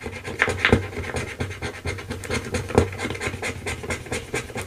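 A coin scratching off the coating on the spots of a scratch-off savings challenge card, in quick, uneven strokes.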